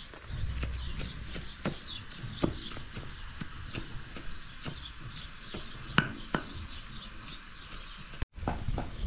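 Large kitchen knife chopping shredded cabbage on a cutting board: sharp, irregular knocks of the blade striking the board, about two or three a second, breaking off abruptly near the end.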